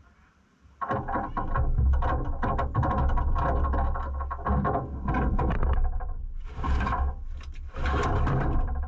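A nylon backpack being handled and pulled across the rear floor of a Land Rover: rustling with many small knocks and clicks against the vehicle's metal body over a low rumble, starting about a second in and busiest near the end.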